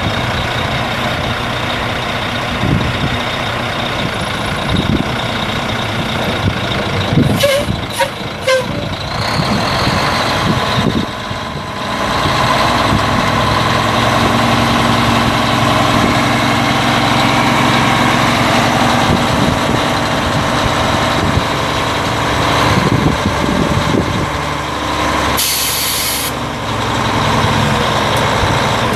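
Mack E6 11-litre inline-six diesel of a 1986 Mack R688ST dump truck running while the single-ram hydraulic hoist raises the steel dump bed; the engine gets louder about twelve seconds in. A short burst of air hiss comes about two-thirds of the way through, with a few knocks earlier on.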